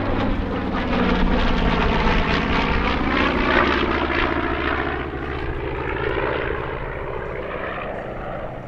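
The twin radial piston engines of a B-25 Mitchell bomber making a low flyby. The drone swells to its loudest about three to four seconds in, then fades as the aircraft moves away.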